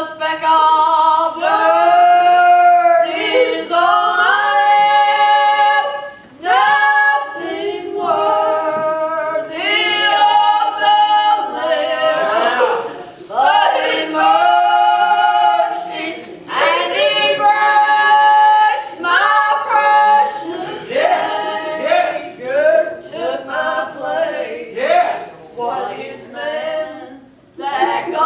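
Two women singing a gospel song unaccompanied, in long held notes with short breaks between phrases.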